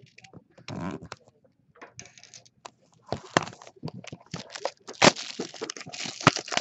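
Plastic wrapping on sealed hockey cards being torn open and crinkled: a brief rustle about a second in, then steady crackling with sharp snaps from about three seconds in.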